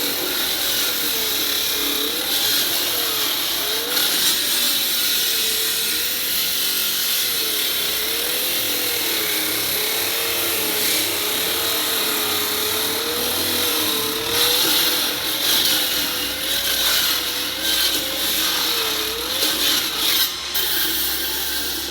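Concrete saw cutting through a concrete slab: a continuous harsh cutting noise with a tone that rises and falls about once a second as the blade works.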